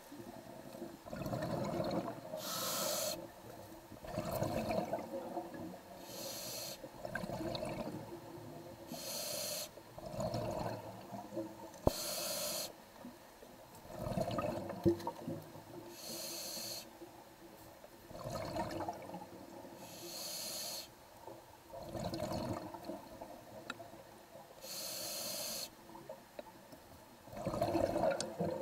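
Scuba diver breathing through an open-circuit regulator: about seven hissing inhalations, each followed by a burst of bubbling exhaled air, roughly every four seconds.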